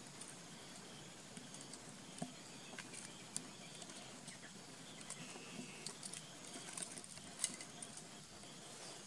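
Small pebbles and gravel clicking and clattering faintly under a baby macaque's hands and feet as it crawls over loose stones, a scattering of sharp ticks over a faint steady background hiss.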